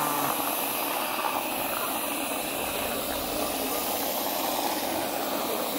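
Aerosol whipped-cream can spraying in one continuous, steady hiss.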